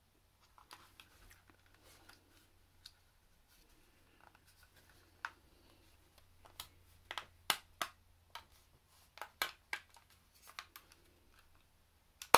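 Light clicks and taps of a Sony MZ-N707 MiniDisc Walkman's casing being handled and pressed together as its back cover is snapped on. They come irregularly, more often in the second half, with one sharper snap near the end.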